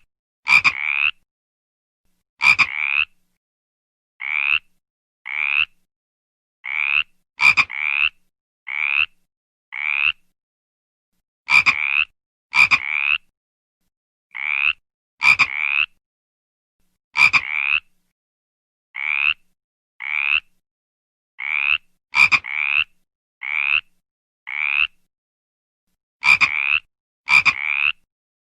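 Frog croaking: short raspy calls, singly or in quick runs of two or three, about one to two a second. A sharp click marks the start of some runs, and there is dead silence between calls.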